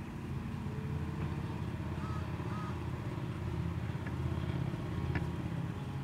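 Low rumble of a passing motor vehicle, swelling over a few seconds and easing off near the end, with two faint short chirps about two seconds in.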